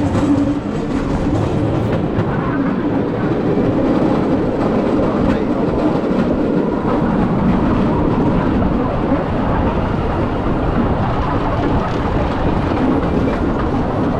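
Steady rumbling and rattling of a moving vehicle carrying the listener.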